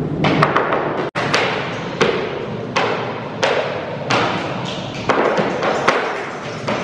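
Heavy, irregular thuds of heeled shoes stamping on a wooden stage platform, each ringing out with a long echoing tail. The sound cuts out for an instant about a second in.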